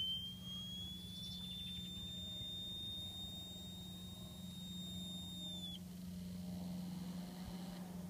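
Brunner (Vento) motorhome fridge vent fans squealing at startup. A high-pitched whistle climbs a little over the first second, holds steady, then cuts off suddenly about six seconds in, over a steady low hum.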